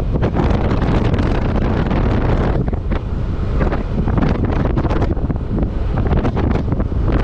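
Wind buffeting the microphone: a loud, steady rush with heavy low rumble and constant gusty flutter.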